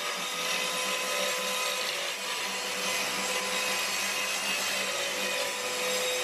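TackLife corded mini circular saw running and cutting through an OSB sheet. The motor holds a steady pitch under the hiss of the blade in the wood.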